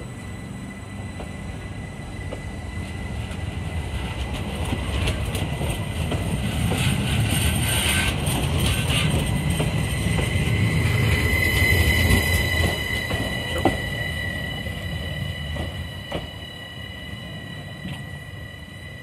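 SBB RABe 522 Stadler FLIRT electric multiple unit pulling away and passing, its traction motors giving a steady high whine of several tones over a low rumble. It grows louder to a peak about two-thirds of the way in, with a couple of sharp clicks, then fades as the train draws away.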